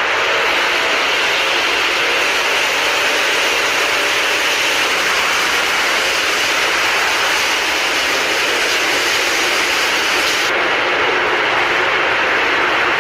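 Road repair machine running with a loud, steady noise that does not change in level; the highest part of the sound cuts off abruptly about ten seconds in.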